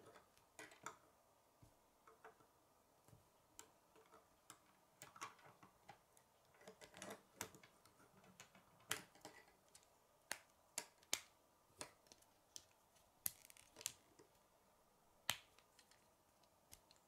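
K'nex plastic rods and connectors clicking as they are snapped together by hand: a string of sharp, irregular clicks, with the loudest ones in the second half.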